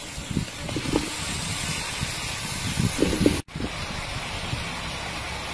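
Chinese kale frying in a hot wok: a steady sizzling hiss with a few soft knocks, cut off for an instant about three and a half seconds in.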